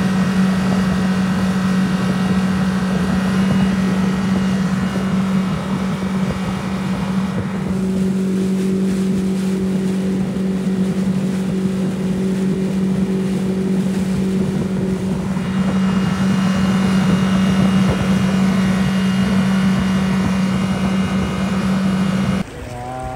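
Yamaha 90 hp outboard motor running at speed, pushing an inflatable boat across open water. It holds one steady pitch throughout and cuts off abruptly near the end.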